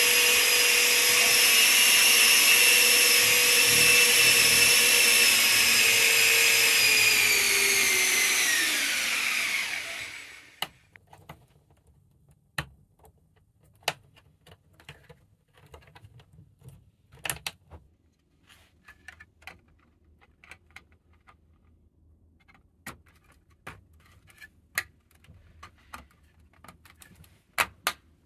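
Electric motors and gearing of a LEGO Technic tracked amphibious vehicle running at about 60% power through a single speed controller, a high steady whine with overtones that winds down in pitch and stops about ten seconds in. After that come scattered light clicks and taps of LEGO plastic parts being handled.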